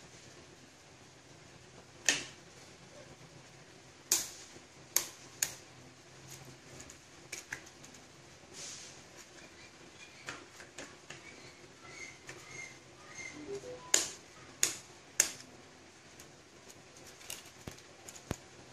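Eggs being cracked open: a string of sharp taps and cracks on eggshells, the loudest coming in small clusters with quiet pauses between.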